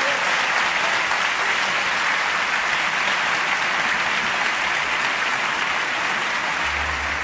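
Audience applauding steadily, with music coming in near the end.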